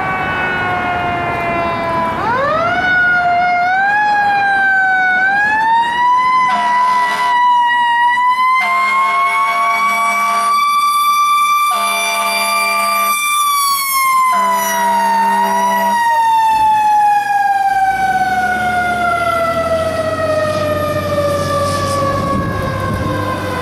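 Fire engine on an emergency run: its siren winds up steeply, holds a high wail, then slowly winds down over the last ten seconds as the truck passes. Four long horn blasts sound in the middle.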